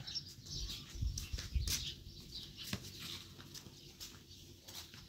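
Small birds chirping off and on, with a few soft low thumps about a second in.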